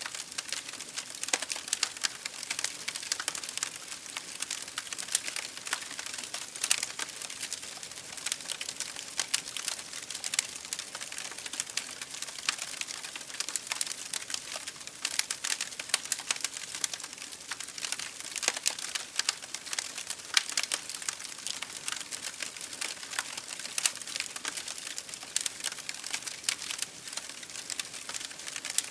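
Fire crackling in an open fireplace: a steady run of small, irregular pops and snaps over a soft hiss.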